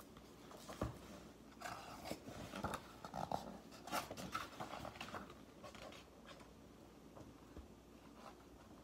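Pages of a picture book being turned and handled: faint paper rustles and soft taps, busiest in the first half, then quieter.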